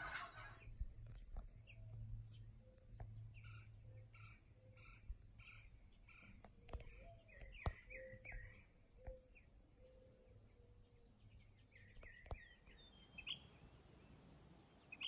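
Faint chirps from small birds, short calls repeated about twice a second for several seconds, over quiet open-air ambience, with a few soft clicks.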